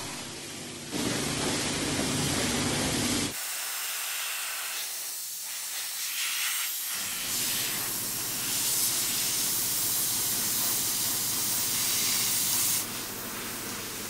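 A car-wash pressure washer spraying water and foam: a steady hiss whose tone changes abruptly a few times.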